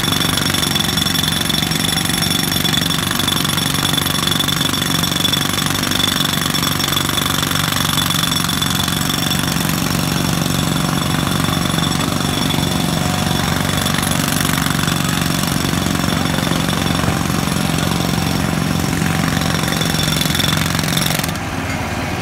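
Jackhammer breaking up the street surface, hammering continuously, then stopping shortly before the end.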